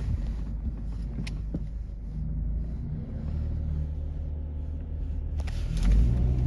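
Motor vehicle engine running with a steady low rumble, growing a little louder near the end.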